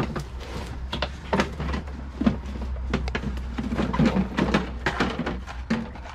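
Irregular knocks and clatter of a portable sewing machine's plastic carrying case being handled and its cover pulled off, with items shifting and rustling around it.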